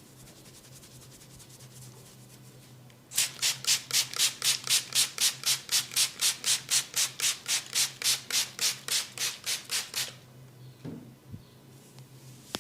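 Hands vigorously scratching and rubbing hair on a scalp during a head massage: a fast, even run of about four scratchy strokes a second starts about three seconds in and stops after some seven seconds.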